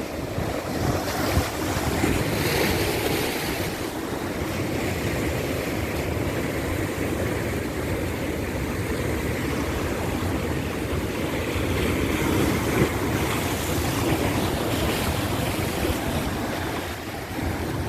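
Ocean surf washing steadily, with wind blowing on the microphone.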